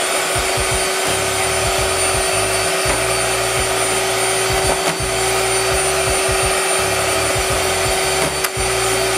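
Handheld electric mixer running steadily with a constant hum, its beaters whipping cream in a plastic bowl toward stiff peaks.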